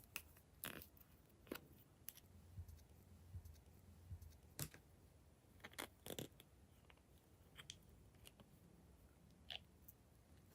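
Glossy slime being handled, giving faint, scattered small clicks and pops at irregular intervals.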